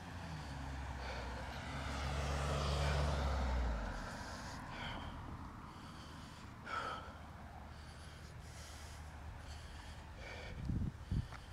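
A motor vehicle passing close by, its sound building to a peak about three seconds in and gone by four seconds. After it come the walker's breaths, heavy after a running interval, and a few low thumps near the end.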